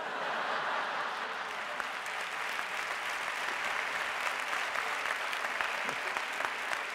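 Studio audience applauding steadily in response to a comedian's punchline: dense, even clapping throughout.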